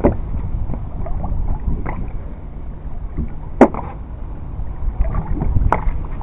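Steady low rumble of a small boat on the open sea, with two sharp knocks on board, the louder one about halfway through.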